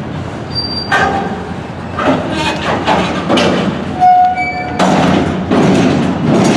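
Freight car couplers bang and clank again and again as the slack runs in on a slowly rolling cut of intermodal flatcars that is slowing down. There are short metallic squeals between the bangs, and the heaviest clanks come about five seconds in.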